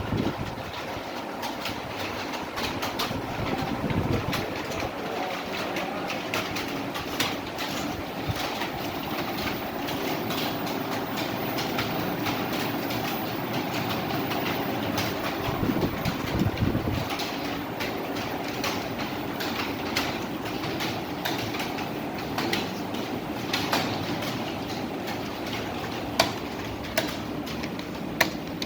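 Computer keyboards clattering under fast typing: a dense, continuous stream of keystroke clicks, with a few sharper, louder clicks near the end.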